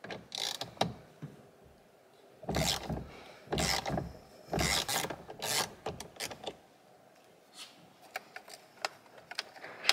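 Steering-wheel retaining bolt being worked out of the steering column by hand: a run of short metallic scraping rasps, then a few light clicks near the end.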